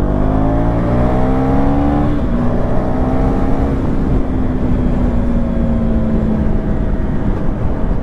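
KTM 390 Duke's single-cylinder engine pulling hard, its note rising for about two seconds, dropping at an upshift, then sagging slowly. Heavy wind rush throughout.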